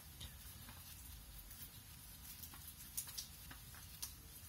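Faint, scattered clicks and light taps as the old engine oil filter is worked off by hand, the sharpest about three seconds in, over a low steady background rumble.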